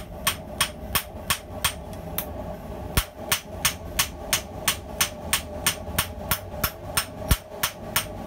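Hand hammer striking a hot steel razor blade on a small steel block anvil in a steady rhythm of about three blows a second, drawing down the blade's edge.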